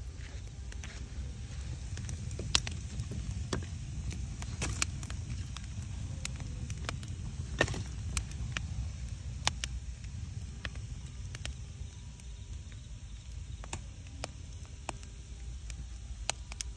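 Wood fire crackling: scattered sharp pops and snaps at irregular intervals over a steady low rumble.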